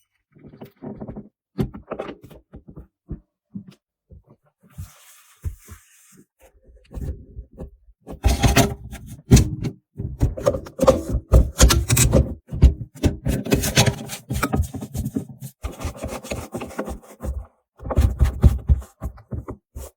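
Irregular knocks and clattering, sparse at first and growing dense and loud about halfway through.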